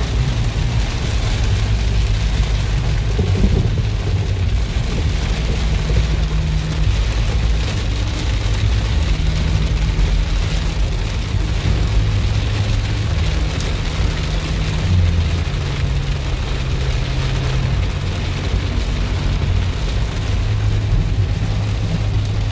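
Heavy rain beating on a car's roof and windscreen, heard from inside the cabin over the steady drone of the car's engine and tyres on the wet road.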